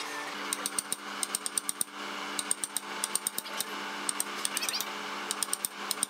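A steel chisel being driven into a timber block with quick taps of a wooden mallet, cutting out a notch. The taps come in rapid bursts of sharp, ringing clicks, several a second, with short pauses between bursts.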